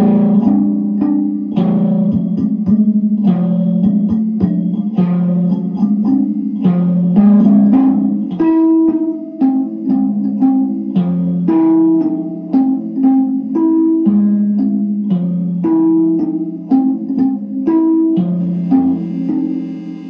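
Kalimba (thumb piano) fitted with a pickup, its tines plucked in a repeating melodic figure of two to three notes a second, played through a Fuzz Face fuzz, a graphic EQ, an Electro-Harmonix Small Clone chorus and a delay pedal into guitar amps. The playing eases off near the end.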